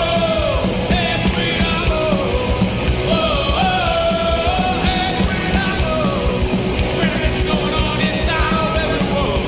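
Fast rock music with a yelled, sung vocal over driving drums and distorted guitar, in a punk style.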